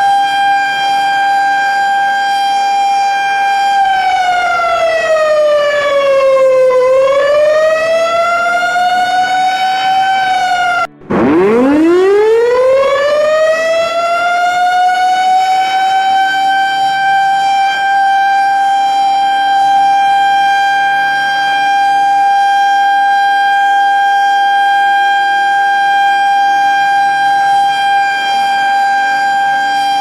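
Civil defense siren sounding a steady, pitched tone with many overtones. About four seconds in it slides slowly down and back up. Near eleven seconds it cuts out for a moment, then winds up again from a low pitch to its full steady tone by about sixteen seconds and holds there, starting to fall near the end.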